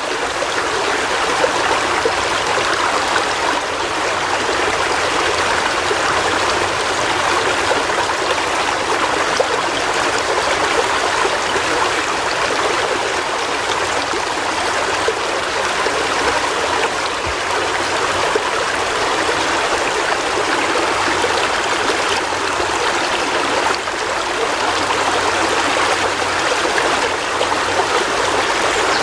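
River water flowing over rocks: a steady rushing and burbling that keeps up evenly throughout.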